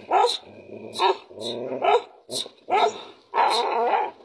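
Dogs barking and growling in a hostile standoff: a run of short sharp barks, a low growl about a second in, and a longer snarl near the end.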